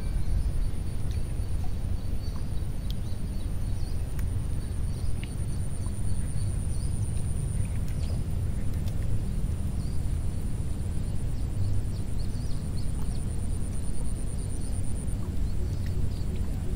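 Rural waterside ambience: a steady low rumble with a thin, steady high whine and scattered faint chirps.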